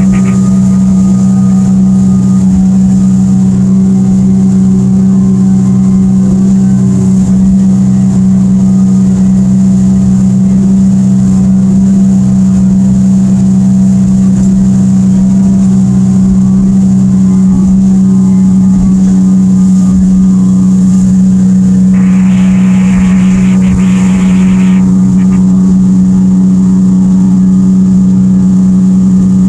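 Evinrude E-TEC 115 two-stroke outboard running at a steady cruising speed with the boat on plane, a loud, even drone with a low rumble of hull and water under it. About three quarters of the way through, a burst of hiss rises over it for about three seconds.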